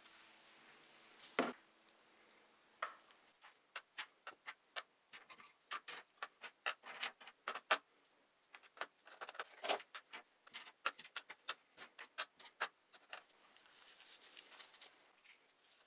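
A run of small, sharp clicks and taps at an irregular pace, a few a second, as of small hard parts being handled and worked by hand. A louder single click comes about a second and a half in, and there is a short hiss near the end.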